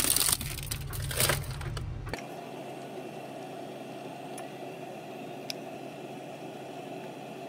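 A quick run of loud cracking and crunching clicks that stops abruptly about two seconds in, giving way to a steady low hum.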